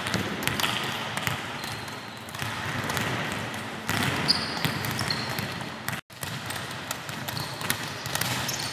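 Many volleyballs bouncing off a wooden gym floor and being struck by players' arms and heads, a scatter of irregular thuds overlapping one another. The sound cuts out for an instant about six seconds in.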